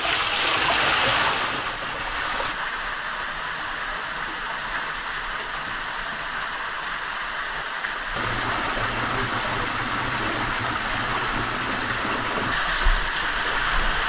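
Steady rushing of a canyon waterfall and stream, a little louder in the first two seconds.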